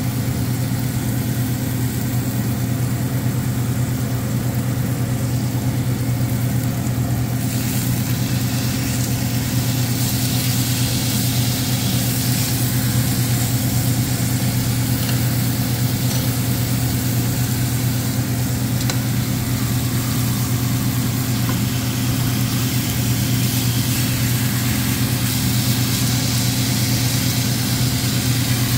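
Beef steaks sizzling in butter in a frying pan, the sizzle getting louder about seven seconds in, over a steady low mechanical hum.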